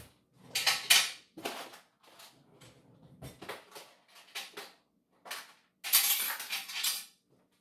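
Metal kitchen utensils clattering and rattling in a run of short bursts, loudest about a second in and again near the end, as someone rummages for seafood cutters.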